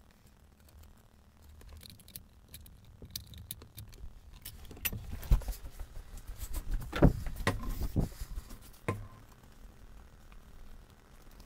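Scattered clicks, taps and light rattles of small plastic instrument-cluster parts being handled, with a few louder knocks in the middle.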